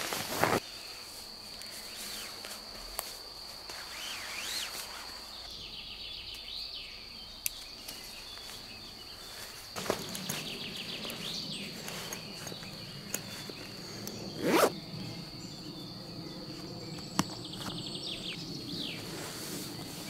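Camping gear packed by hand into a stuff sack: fabric rustling and handling noises, with one sharp zipper pull about 14 seconds in, the loudest sound. Behind it a steady high insect drone runs on, with occasional bird calls.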